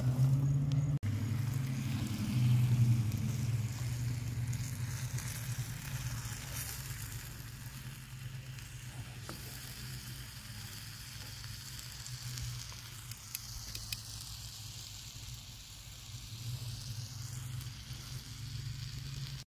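Beef ribs in braising liquid sizzling in a cast iron skillet over a charcoal fire, with a steady low hum underneath. Loudest for the first few seconds, then settling to a steadier sizzle.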